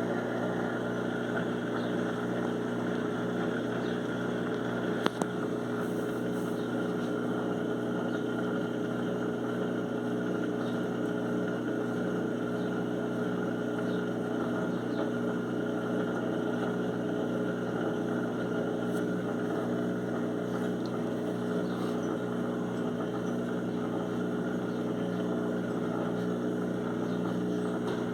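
Electrolux washing machine spinning a duvet, a steady mechanical hum with a single sharp click about five seconds in. The owner was startled by the noise but takes it for normal for this spin.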